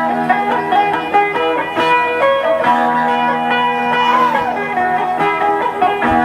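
Music played on a plucked string instrument, with many notes over a sustained low tone.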